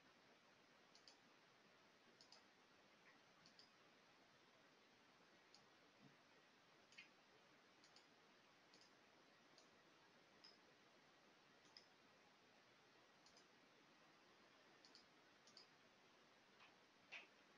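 Faint computer mouse clicks over near silence, coming irregularly about once a second, with one slightly louder click near the end.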